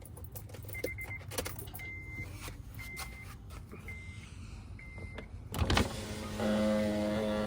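Five short high beeps about a second apart and a thump, then the 2008 Acura TSX's power window motor running with a steady hum, driven by a newly fitted replacement window switch.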